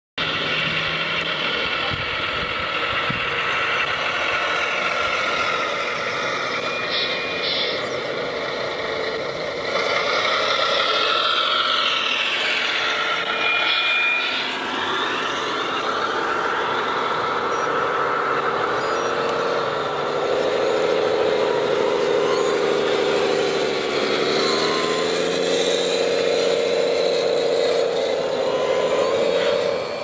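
RC scale model excavator (Damitz RH 6.6) running, a steady mechanical whine made of several tones that rise and fall together as the machine is worked. Two short high beeps sound about seven seconds in.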